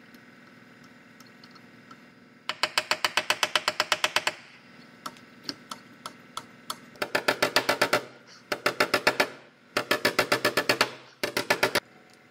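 Rapid ratchet clicking, about ten clicks a second in five bursts, as the screw of a glue-pull bridge lifter is cranked to pull out a dent in an aluminum door through glued tabs.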